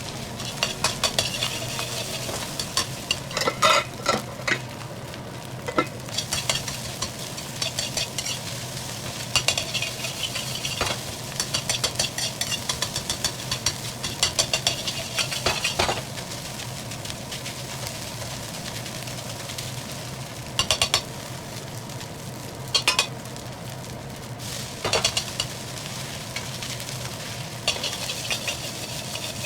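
Food being stir-fried in a wok: a metal spatula scraping and clattering against the wok in busy spells, with a few sharp knocks, over a steady sizzle and a low hum.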